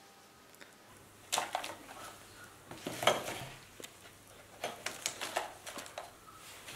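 Potting soil scooped by gloved hands from a plastic plant pot into a thin clear plastic tray: rustling and scraping with light clicks and knocks on the plastic, in several short bouts, the loudest about three seconds in.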